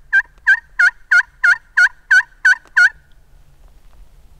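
Turkey call worked by a hunter: a run of about nine loud, evenly spaced hen yelps, roughly three a second, that stops about three seconds in.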